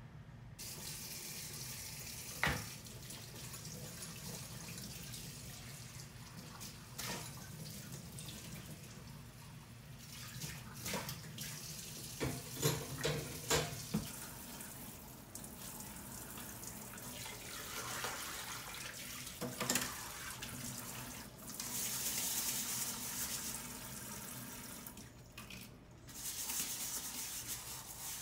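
Tap water running into a sink, with a few sharp knocks of things being handled, most of them around the middle; the flow grows louder in the last third.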